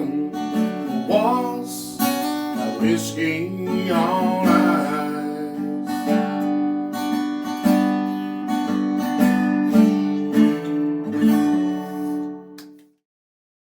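Acoustic guitar strumming the closing bars of a slow country-blues song, with a few wordless, drawn-out sung notes in the first five seconds. The final chord rings and then cuts off abruptly just before the end.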